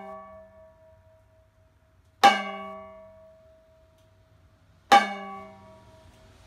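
A metal pan struck with a wooden stick: two single hits about two and a half seconds apart. Each rings out with several metallic tones that fade over a second or two, and the ring of an earlier hit is still dying away at the start.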